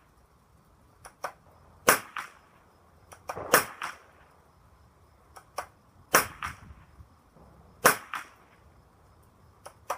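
Savage Anschutz Model 54 Sporter bolt-action .22 rimfire rifle firing CCI standard velocity .22 LR rounds. There are about four sharp shots, roughly two seconds apart, with smaller clicks between them.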